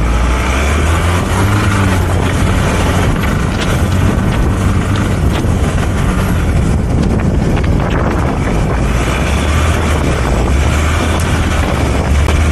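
A four-wheel-drive vehicle's engine running steadily as it drives, with wind noise on the microphone.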